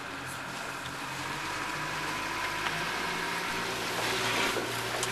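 Boat engine idling with a steady low hum, with a light click near the end.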